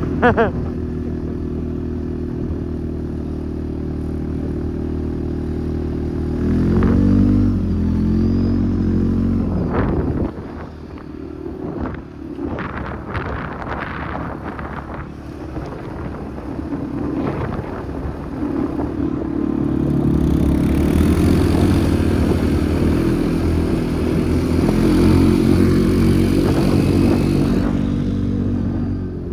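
ATV engine running at a steady speed, then revving up about seven seconds in and running unevenly with knocks and rattles from rough ground through the middle. A steady hiss joins the engine over the last third.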